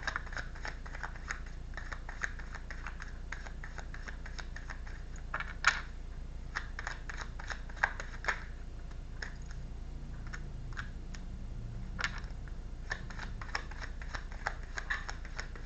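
Tarot cards being handled on a table: a run of light, irregular clicks and taps, with a few sharper ones, over a steady low hum.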